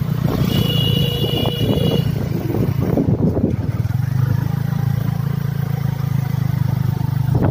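Motorcycle engine running steadily while riding, with road and wind noise. A brief high-pitched tone sounds from about half a second in to about two seconds in, and the engine's hum settles into an even drone from about four seconds in.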